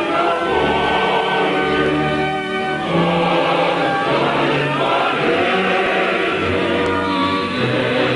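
Choral music: a choir singing long held chords.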